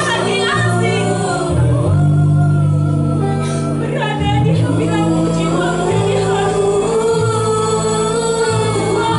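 A choir singing a slow song in long held notes, over steady low notes that change every second or two.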